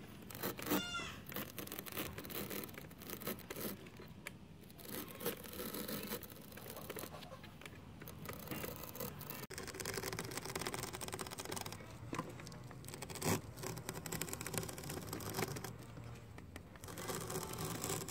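A fixed cutter blade slicing through motorcycle-tire rubber and a foam insole, a run of rasping scrapes as the sandal edge is pushed past it.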